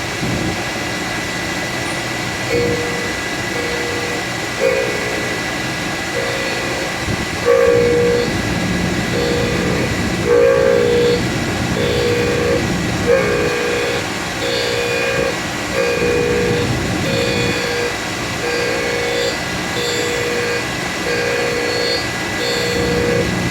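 Surface grinder running with its aluminum oxide wheel, charged with jeweler's rouge and beeswax, passing over the work without downfeed. From a couple of seconds in, a loud tonal squeal pulses on and off about once a second as the wheel peels excess wax off the part, sounding horrible even though the part stays cool.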